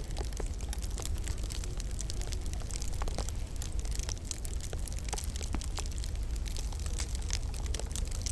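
Wood fire crackling in a log burner: irregular sharp pops and snaps over a steady low rumble.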